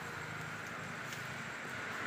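Steady outdoor background noise: a low rumble under an even, higher hiss, slowly growing a little louder.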